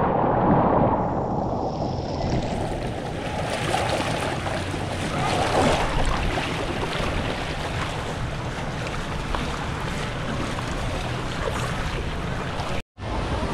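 Water rushing and splashing on a water slide, heard from a camera riding down it, with wind buffeting the microphone. The sound cuts out for a split second near the end.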